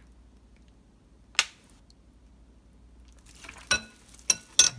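Small kitchen clicks: one sharp click about a second and a half in, then a quick run of short ringing clinks near the end, a metal spoon knocking against a glass mixing bowl.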